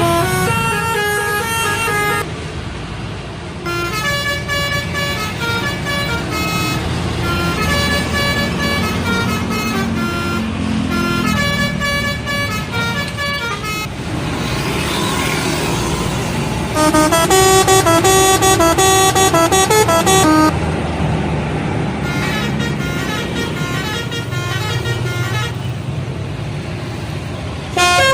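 Indonesian bus telolet horns playing quick multi-note melodies in several bursts over the low running of bus engines, with the loudest burst about two-thirds of the way through.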